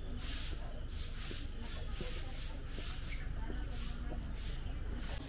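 Cicadas in the trees buzzing in a pulsing high hiss, about two pulses a second, over a low steady rumble.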